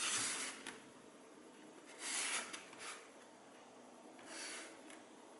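Foam mannequin head wearing FPV goggles, rubbing and scraping in a few short, soft bursts as it is turned by hand on a desk.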